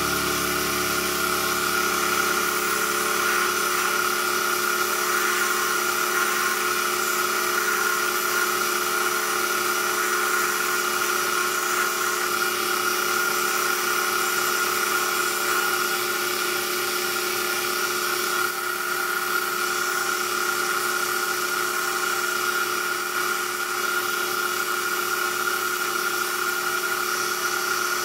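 Small electric motor of a homemade lathe running steadily with a high whine, spinning a wooden chess rook as it is worked by hand with a file or sandpaper.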